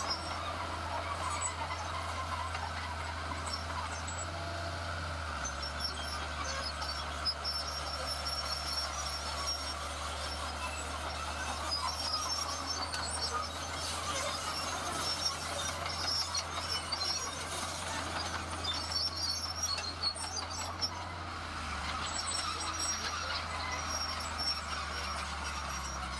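Heavy diesel construction machinery running steadily, with scattered clanks. The engine note drops slightly about five seconds in.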